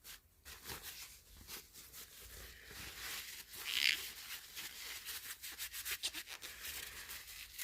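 A cloth rubbing and wiping over the glass lens of a vintage flashlight as it is cleaned: a run of short scratchy strokes, with a brief higher squeak about four seconds in.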